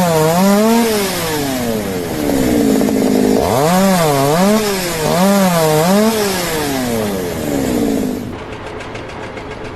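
Two-stroke chainsaw revving up and down in quick cycles as it carves a log. It comes in two spells, its pitch sliding down toward idle between them. Near the end it gives way to a quieter stretch of rapid ticking.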